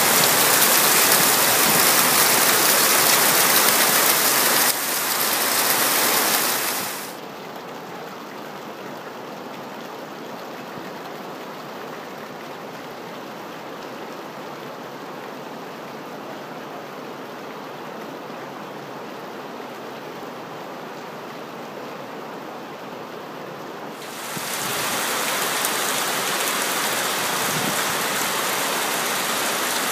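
Heavy rain pouring down onto lake water and dock roofs, a steady hiss. It is loud at first, drops to a much softer hiss about seven seconds in, and swells back up about 24 seconds in.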